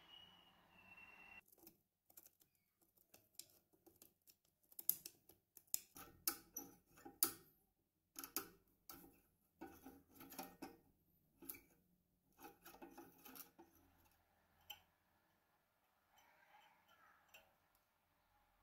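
Sharp metal clicks and scrapes, irregular and loudest early on, as a rusty steel lock body is worked back and forth on a steel drill bit held in a vise to push out a rusted spring.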